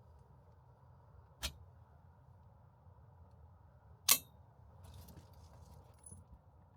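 Two sharp clicks about two and a half seconds apart, the second much louder, over a faint low hum.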